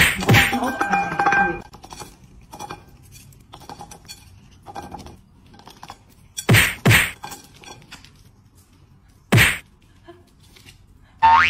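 Duck pecking dry kibble from a ceramic plate: light clicks and clinks of bill on plate and pellets, broken by loud thunks, one at the start, two close together about six and a half seconds in, and one more about nine and a half seconds in. A brief ringing tone sounds just after the first thunk.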